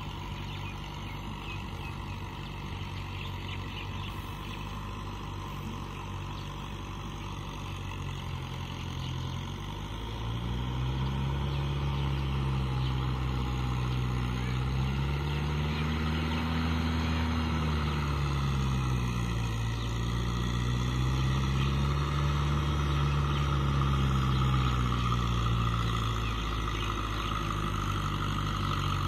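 Tractor diesel engine working under load, pulling a rotavator through a flooded paddy field, its note rising and falling with engine speed. It grows louder about a third of the way in as the tractor comes closer.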